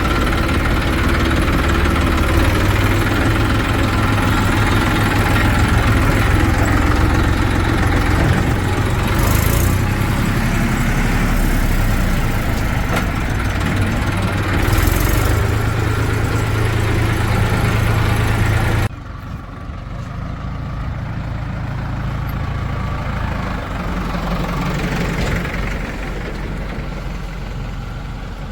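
Heavy diesel engine of earth-moving or farm machinery running steadily. About two-thirds of the way through, the sound drops suddenly to a quieter engine running, which swells briefly and then eases.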